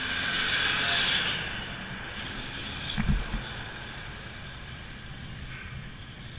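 A tractor-trailer passes close by on a bridge deck. Its tyre and engine noise swells to a peak about a second in, then fades as it pulls away. A short thump comes about three seconds in.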